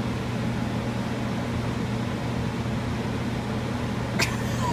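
Two portable air-mover blower fans running steadily, an even rush of air over a low hum, blowing to dry out a water-soaked floor. A brief click about four seconds in.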